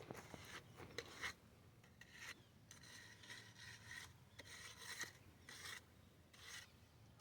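Faint rasping scrapes, one about every second, of a hand tool being worked over fresh concrete to smooth it.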